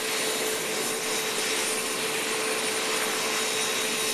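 Medical helicopter's turbine engine running steadily on the ground: a constant whine over an even rushing noise.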